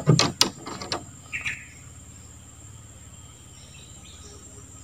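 Steady high-pitched drone of forest insects, with a few sharp knocks and clatters in the first second and a short chirp about a second and a half in.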